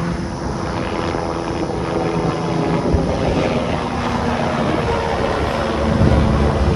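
Aircraft engine running at an airfield, a steady droning tone that grows louder near the end.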